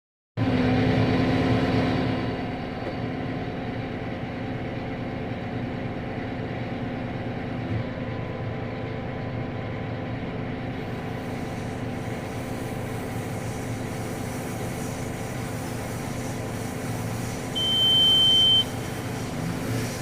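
Tractor engine running steadily with a Kverneland 7740J baler at work, louder for the first two seconds. A single electronic beep lasting about a second comes near the end.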